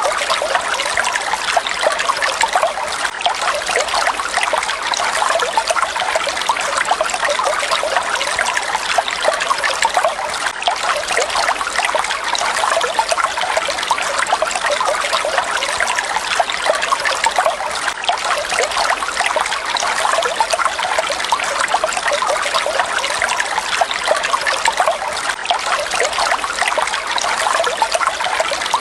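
Falling water splashing steadily: a dense, even trickle and splatter with little low rumble.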